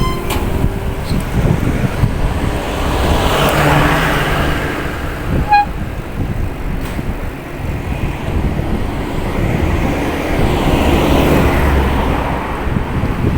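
Road traffic noise heard while riding a bicycle, with a steady rumble throughout. The noise swells and fades twice, about four seconds in and again near the end, as vehicles pass. A brief high chirp comes about five and a half seconds in.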